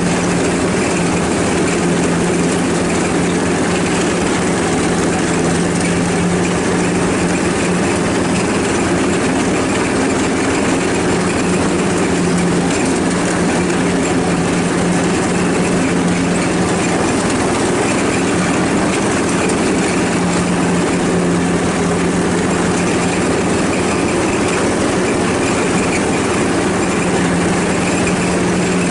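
Ride-on lawnmower engine running at a steady speed, a constant unbroken drone.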